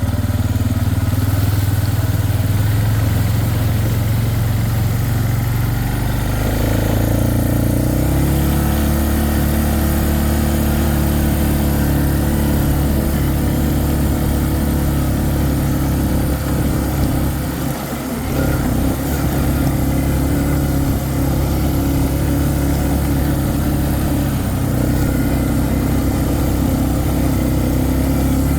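A small vehicle engine running steadily. Its pitch shifts up a few seconds in, and it dips briefly in level around the middle.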